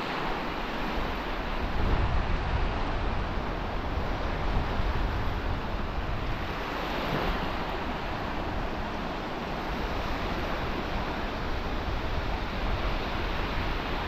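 Small waves breaking and washing up a sandy beach in a steady surf hiss, with wind buffeting the microphone as a low rumble.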